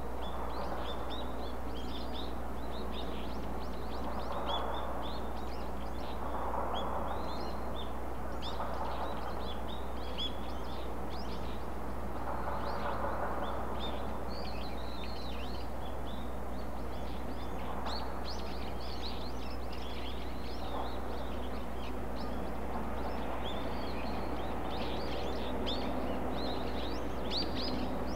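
Small birds chirping, many short quick calls all the way through, over a steady low background rumble of outdoor noise.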